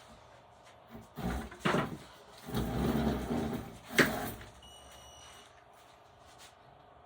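A few irregular knocks and scraping rustles, then one sharp knock about four seconds in: objects being handled and set down.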